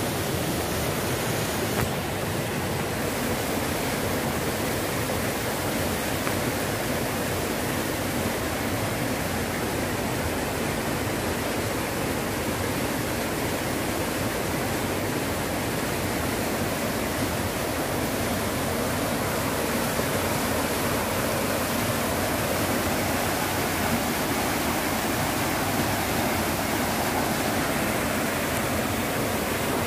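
Shallow rocky river rushing over and around boulders in small white-water rapids: a steady, unbroken rushing of water.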